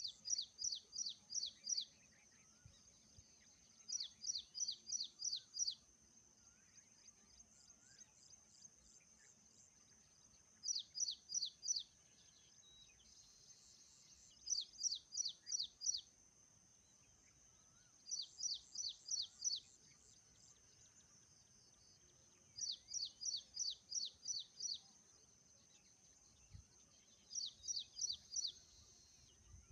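A songbird singing a repeated phrase of five to seven quick, high, downward-sliding chirps, one phrase every four seconds or so, with a faint steady high-pitched buzz underneath.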